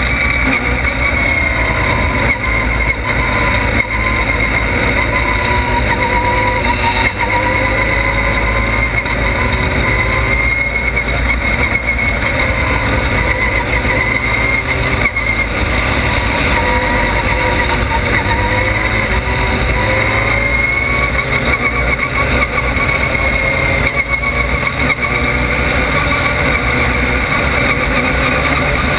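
Formula Mazda race car's Mazda rotary engine running hard, heard from the onboard camera, its pitch rising and falling as the driver works through the corners. Heavy low wind rumble runs under it.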